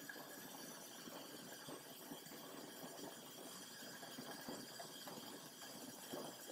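Faint, soft irregular crackle and hiss of a Kitson and Chance Bros 55 mm mantle kerosene burner's flame, still burning yellow as it preheats and the vaporizing tubes come up to heat.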